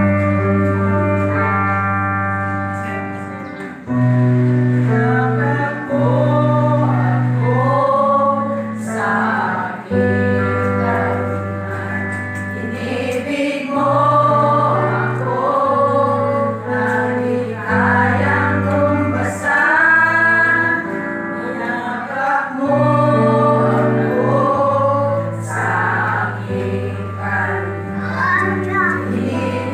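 Women's vocal group singing a gospel song together over an instrumental accompaniment of long held notes.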